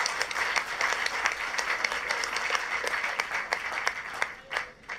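Audience applause: many people clapping together, thinning out to a few last separate claps near the end.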